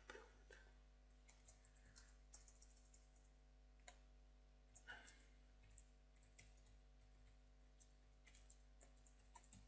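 Faint, scattered computer keyboard keystrokes and mouse clicks at an irregular pace, over a steady low electrical hum.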